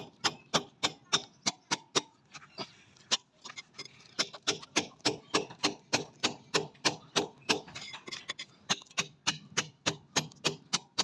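Rapid, evenly paced hammer blows, about four a second, with a brief lull about two seconds in.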